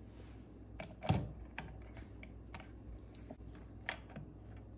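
Scattered small clicks and taps as a brush plate is pushed back into a Minn Kota trolling motor's housing and a screwdriver works its screws in, with one louder knock about a second in.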